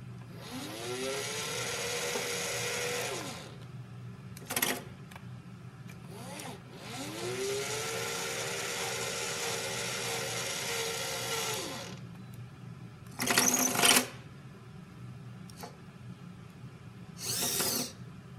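Small DC gear motors driving a model lift mechanism. A motor whine rises in pitch as it spins up, runs steadily for about three seconds and stops; a second, longer run follows. Between and after the runs come several short, louder whirring buzzes, the loudest about two-thirds of the way through.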